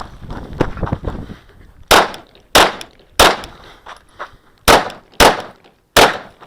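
Glock 34 9mm pistol fired six times at close range, in two groups of three about two-thirds of a second apart, with a pause of about a second and a half between the groups.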